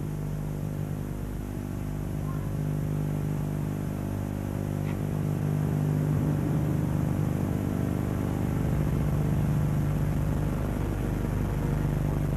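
A steady, low, layered synthesizer drone from the documentary's soundtrack, slowly swelling in loudness.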